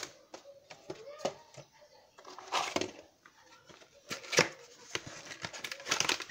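Cardboard boxes of flan mix being handled and set down on a granite worktop: a few short rustles and light knocks, the sharpest about four seconds in.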